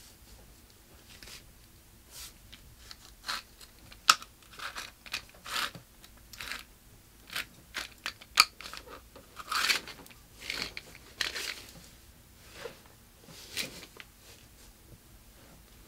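Irregular crunching and rustling of clothing and material as a person moves about, with a few sharp cracks, the loudest about four and eight seconds in.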